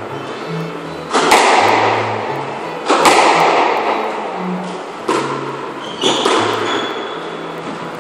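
Squash ball being struck by rackets and hitting the court walls in a rally: four sharp hits, one to two seconds apart, each ringing on in a long echo around the enclosed court.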